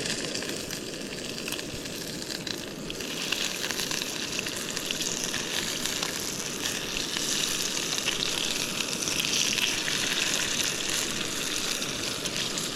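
Hot oil sizzling steadily as pieces of fish fry in it. The sizzle grows louder and brighter about three seconds in.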